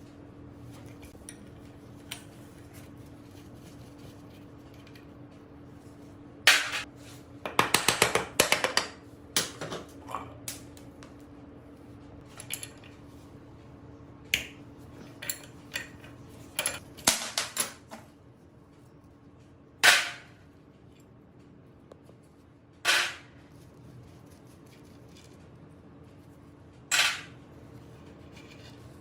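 Metal clinks and knocks, like hand tools working on metal engine parts: a quick cluster of clinks a few seconds in, scattered single taps, then three separate louder knocks spaced a few seconds apart, over a faint steady hum.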